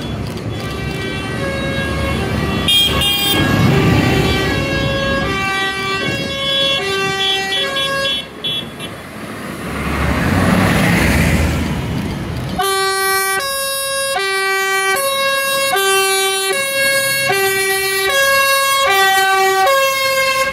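A simple tune of held notes stepping up and down, played loud from a passing parade tractor, heard over tractor engine and road noise. A tractor engine passes close about ten seconds in, and from about twelve seconds the tune plays on clean and loud, without the engine noise under it.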